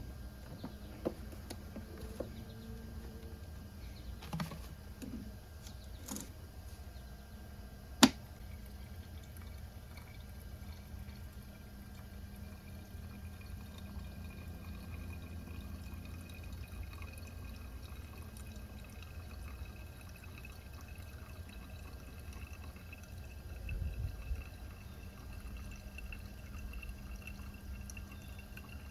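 Gasoline, drained from the mower and mixed with water, poured in a thin stream into a container, its tone rising slowly as the container fills. A sharp click about eight seconds in.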